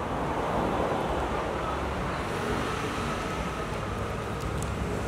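Steady outdoor background noise, heaviest in the low end, with no distinct knocks or clicks standing out.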